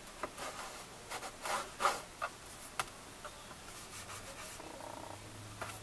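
Cardstock being pressed and rubbed flat by hand, a series of short rustles and scrapes of paper against paper and the scoring board.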